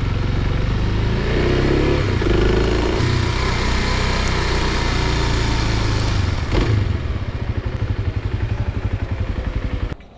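Motorcycle engine running under the rider, heard over an even rush of wind noise while riding. In the last few seconds it runs slower with a regular throbbing, then the sound cuts off suddenly just before the end.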